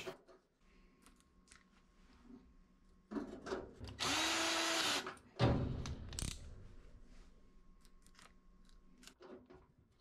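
Ryobi cordless drill/driver with a quarter-inch nut driver runs for about a second, driving in a hex-head screw. Its motor pitch rises and then falls as it spins up and stops. There are handling knocks just before it and a clunk just after.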